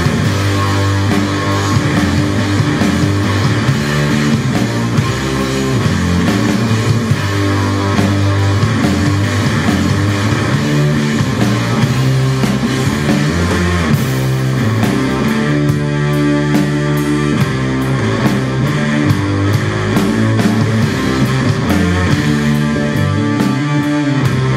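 Rock music with guitar and a steady beat.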